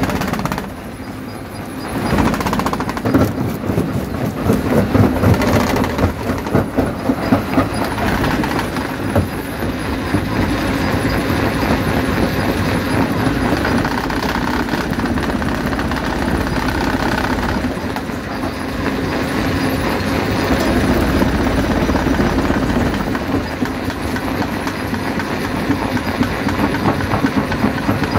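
Stone jaw crusher running, rocks clattering and cracking as they are crushed between its jaws over a steady machine rumble. There is a short lull about a second in.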